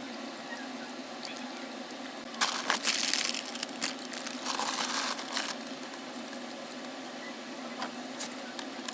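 Food packaging crinkling and rustling as items in a fridge are handled, starting about two and a half seconds in and lasting about three seconds, then a few sharp clicks, over a steady background hum.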